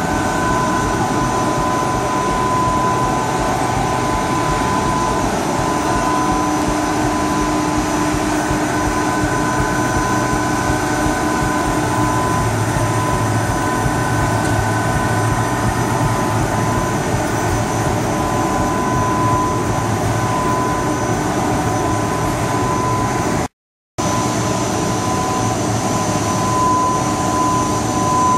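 Machinery of a running industrial short-cut pasta line, a steady loud drone of motors and fans with a constant whine on top. It breaks off briefly about two-thirds of the way through.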